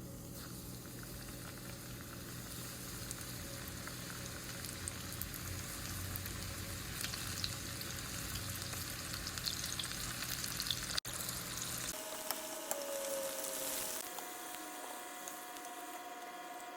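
Battered pepper rings frying in hot oil, a steady sizzle full of small crackles and pops. There is a cut about eleven seconds in, after which faint steady tones sound over the sizzle.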